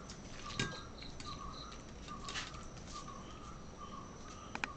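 Faint repeated short chirping calls from an animal, about two a second, with a few brief soft sounds of a hand mixing marinated beef in a steel bowl.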